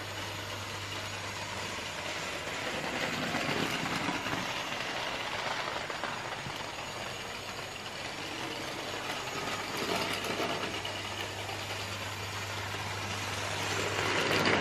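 Hornby 00 gauge model of an LB&SCR Terrier tank locomotive running on track with a train of goods wagons: a steady mechanical running noise with a low hum, growing louder near the end as the train passes close.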